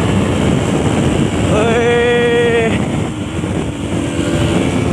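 Motorcycle engine, a Bajaj Pulsar NS200 single, pulling under hard acceleration: its note rises about one and a half seconds in, holds briefly and drops away, under heavy wind noise on the microphone.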